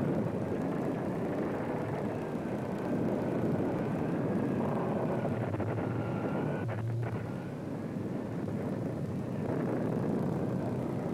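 Typhoon sound effects: storm wind howling with a wavering pitch over heavy seas breaking across a ship's deck, with a crash about seven seconds in.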